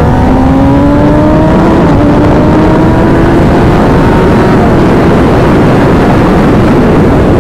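Kawasaki ZX-10R's inline-four engine pulling hard under full acceleration, its note rising with an upshift about two seconds in. From about four and a half seconds the engine note sinks under a heavy wind rush on the microphone as the bike nears 200 km/h.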